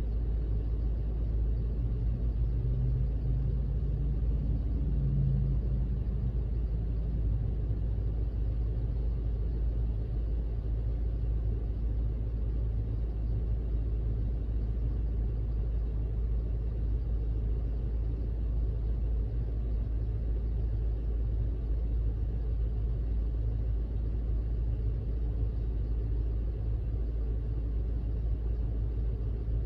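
Car on the move: a steady low rumble of engine and road noise, swelling slightly for a few seconds near the start.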